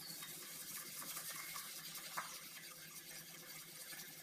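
Wire whisk beating sugar and oil in a glass bowl: a fast, steady scratchy swishing with the wires ticking against the glass, and one sharper click about two seconds in.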